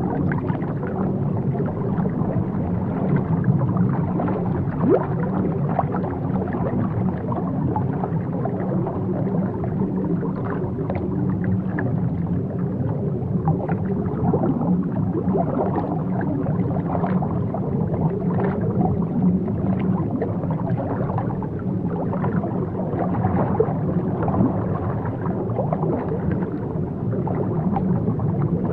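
Underwater ambience: a steady low rumble with continual small bubbling and gurgling sounds.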